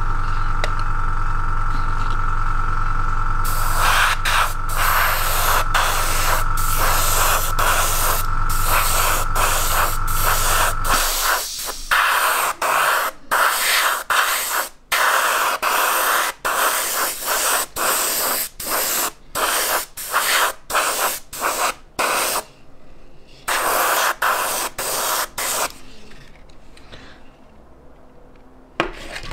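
Airbrush spraying primer in many short hissing bursts, on and off with the trigger, over the steady hum of its air compressor. The compressor cuts out about eleven seconds in, and the spraying stops a few seconds before the end.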